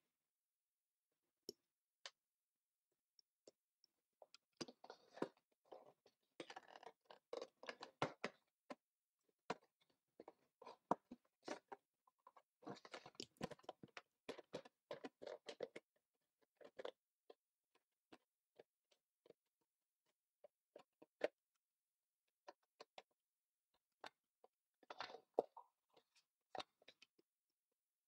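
Faint handling noise of hands working a cardboard CPU retail box: scattered clicks and spells of crackling, the longest about five and thirteen seconds in, and a shorter one near the end.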